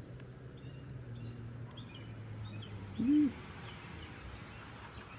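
Birds calling: faint short high chirps, then one short low coo-like call about three seconds in, the loudest sound. A low steady hum runs under the first half and fades out.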